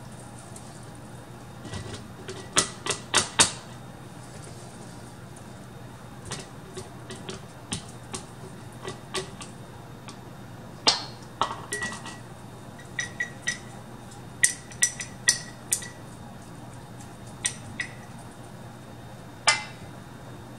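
Irregular clinks and taps of a kitchen utensil knocking against a stainless steel bowl, a plastic canning funnel and a glass canning jar as pork chunks are loaded into the jar, coming in quick runs of several knocks, some ringing briefly.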